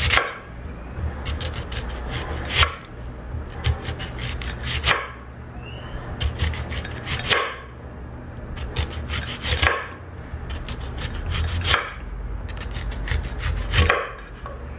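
Kitchen knife slicing a whole white onion into rounds on a wooden cutting board: seven crisp crunching cuts, about one every two seconds, each ending with a knock of the blade on the board. A low steady rumble runs underneath.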